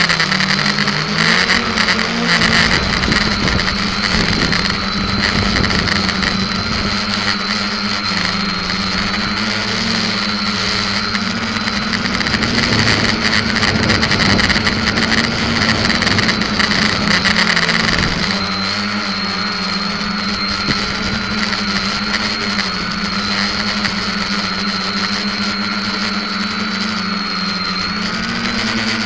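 SK450KK2 quadcopter's electric motors and propellers droning in flight, heard from the keycam on its frame. The pitch wavers up and down as the throttle changes. A rushing noise rides over it until about two-thirds of the way through, then drops away, leaving the motor drone alone.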